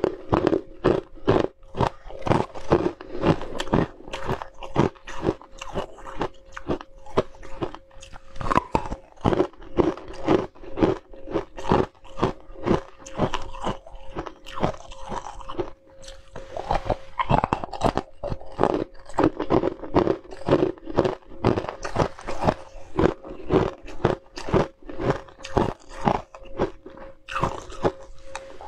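Chunks of ice crunched between the teeth: a steady run of sharp crunches, about two or three a second, with a short pause a little past halfway.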